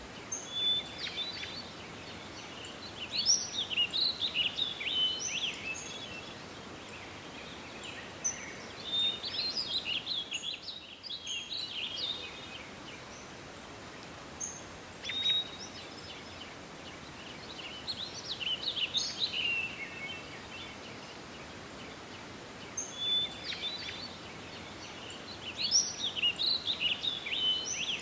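A songbird singing in repeated phrases of quick, varied chirping notes, one every few seconds, over a steady outdoor hiss.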